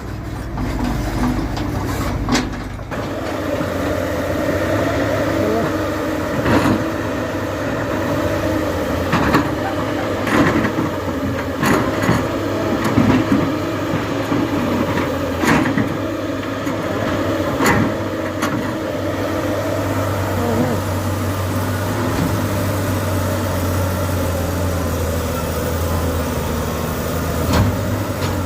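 Diesel engine of a heavy construction machine running steadily, with scattered sharp metallic knocks and clanks from the machine at work.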